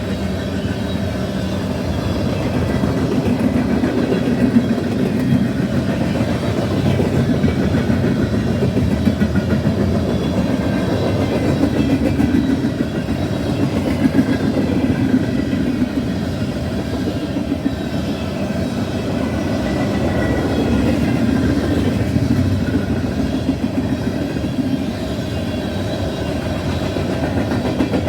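Freight train of gondola cars rolling past, a steady rumble of wheels on rail with clickety-clack and faint wheel squeal.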